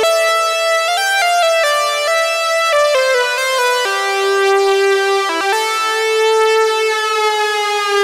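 GForce Oberheim SEM software synthesizer, a monophonic SEM emulation, playing a single-note melody line with a bright, buzzy tone. The first half is quick stepped notes; the second half holds longer notes, and the last note slides slowly downward in pitch.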